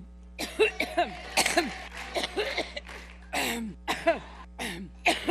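A woman's coughing fit: a long run of short coughs, about two to three a second, many with a voiced edge.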